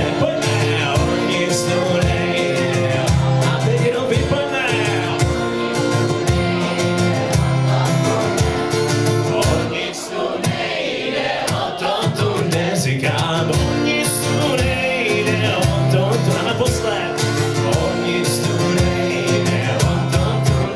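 Live acoustic-guitar pop song: guitar playing and sung vocals over a band with a steady low beat.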